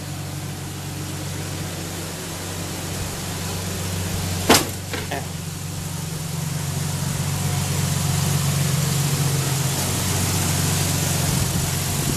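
An engine idling steadily, getting a little louder about halfway through. One sharp click sounds about four seconds in, with a fainter one just after.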